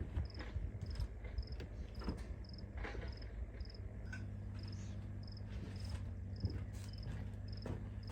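A cricket chirping steadily, short even chirps a little under twice a second, with faint scattered clicks and knocks from handling things nearby.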